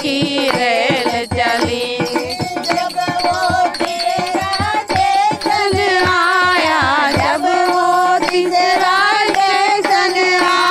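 A group of women singing a Hindi devotional bhajan together, with a steady percussive beat of about three strokes a second that drops out about seven seconds in while the singing carries on.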